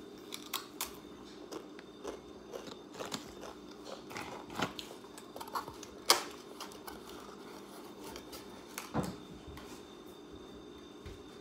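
A child crunching and chewing a crisp snack, with scattered clicks and knocks; the sharpest knock comes about six seconds in, over a faint steady hum.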